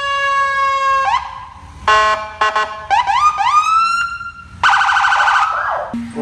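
Police car's electronic siren cycling through its tones: a long held tone that sags slightly in pitch, then a run of rising sweeps, then a rapid pulsing warble for about a second near the end that drops away.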